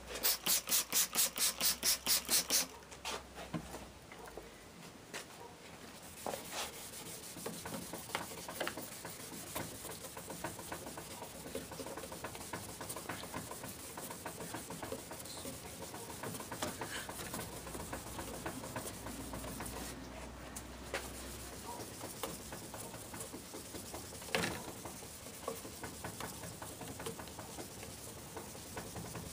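Fine 3000-grit sandpaper rubbed by hand back and forth over a plastic headlight lens to take off the oxidation. It starts with a loud run of quick strokes, about five a second, then goes on as a softer, steady scratchy rubbing with small clicks.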